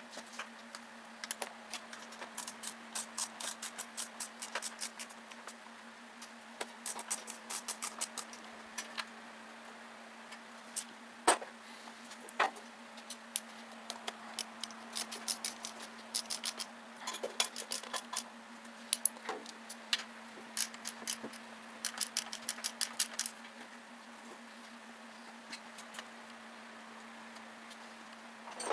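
Ratchet wrench clicking in quick runs as bolts are run down on a riding mower's engine, with one sharp metal knock about a third of the way in.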